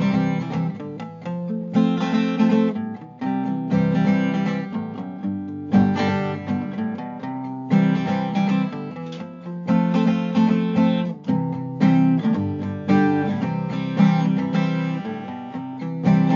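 Background music: a strummed acoustic guitar, with strong chord strokes about every two seconds.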